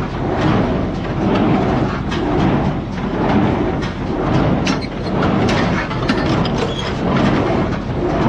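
New Holland 273 square baler running empty off a tractor's PTO: a continuous mechanical clatter with sharp metal clicks, swelling and easing in a steady rhythm about once a second.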